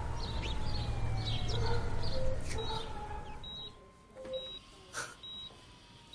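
Hospital patient monitor beeping steadily, about once a second, from a little over two seconds in. Before that a low rumble fades away.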